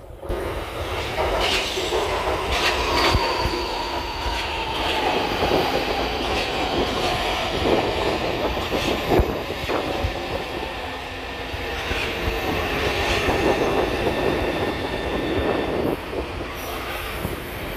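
A São Paulo Metrô train running alongside the platform close by, with a steady rolling rumble and a motor whine that falls in pitch over several seconds. Sharp clacks come from the wheels over rail joints, and a faint high squeal sounds early on.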